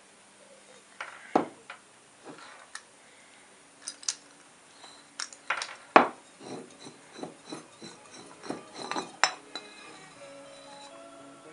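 Metal clinks and knocks as the metal head of an emptied powder fire extinguisher is unscrewed by hand and lifted out with its siphon tube, a string of irregular sharp taps with the loudest about six seconds in.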